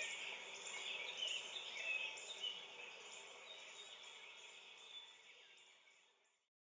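Field recording of a natural soundscape: a dense chorus of insects trilling in pulses, with bird chirps over it. It fades out to silence near the end.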